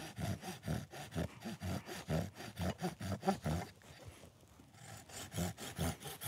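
Silky Gomboy folding saw cutting a fine V-notch into a wooden stick with short strokes, about three a second, pausing for about a second partway through before sawing on.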